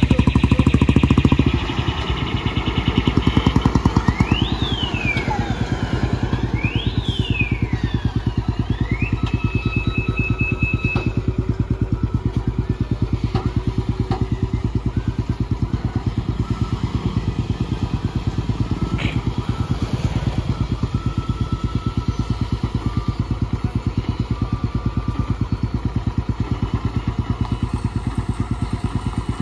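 Heavy, loaded multi-axle lorry's diesel engine pulling steadily at low revs as it crawls round a hairpin bend, with motorcycles passing close by.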